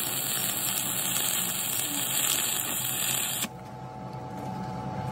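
Electric arc welding on a steel truck countershaft: the steady hiss of the arc, which stops about three and a half seconds in.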